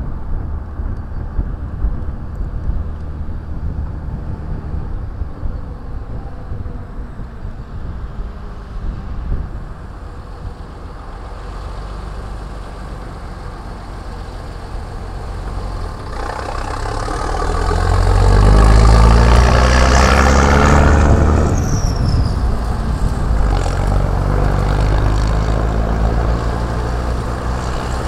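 Classic Scania-Vabis diesel trucks driving past, their engines running steadily. The engine sound grows louder from a little past halfway as a truck comes close, and is loudest about two-thirds of the way in.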